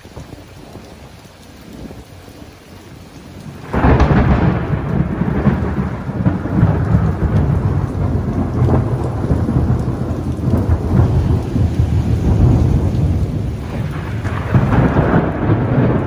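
Rain falling, then about four seconds in a sudden loud clap of thunder that rolls on as a long, deep rumble, swelling again near the end.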